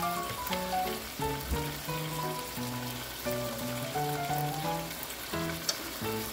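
Red-marinated chicken pieces sizzling in a frying pan, under background music with a melody of short, stepping notes. A single sharp click near the end.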